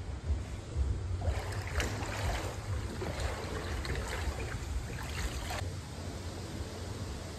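Floodwater sloshing and splashing in several surges as someone wades through it, over a steady low rumble.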